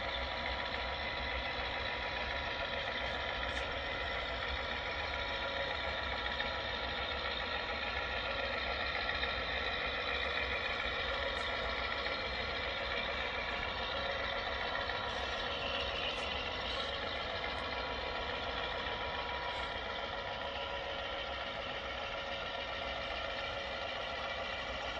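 Sound-decoder diesel engine sound from O scale Atlas GP7 model locomotives fitted with LokSound decoders, a steady engine drone as the pair run with their train.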